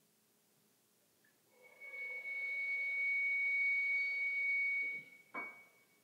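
Live chamber ensemble sustaining a soft chord topped by one high, pure, steady tone. It comes in about a second and a half in, holds, and stops about five seconds in, followed by a single short note.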